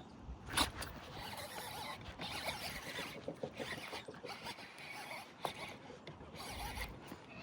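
Spinning fishing reel buzzing and ratcheting in irregular stretches as a hooked fish, a striped bass on a drop-shot rig, is fought in, with a sharp click about half a second in.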